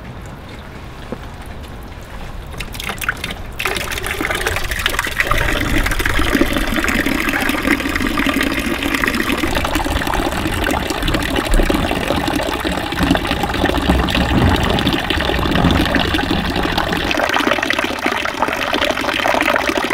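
Water running from a plastic rain barrel's spigot and splashing as it falls, pouring into a plastic tub that is filling up. The running water is fairly soft at first and grows louder and fuller a few seconds in.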